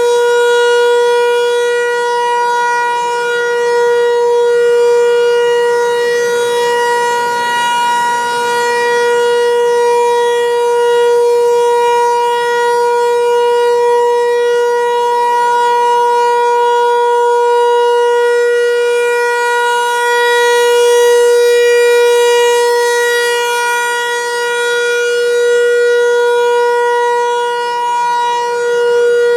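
Federal Signal 508-128 outdoor warning siren sounding a steady, loud single tone that holds its pitch. Its loudness swells and fades every five or six seconds as the rotating horn sweeps past.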